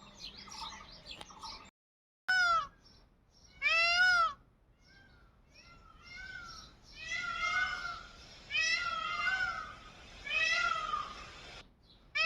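A cat meowing over and over, about eight calls that each rise and fall in pitch, some loud and some faint. Faint bird chirps come in the first two seconds, before a brief cut in the sound.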